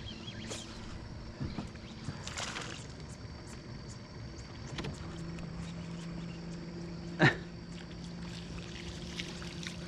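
Electric trolling motor on a small aluminium boat humming steadily, coming in about halfway through. One brief sharp sound stands out about seven seconds in.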